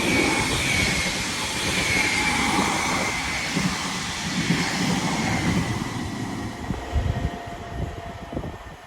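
Two coupled Class 331 electric multiple units passing at speed without stopping: a loud rush of wheels on rail with a faint high whine that slowly falls in pitch, dying away near the end.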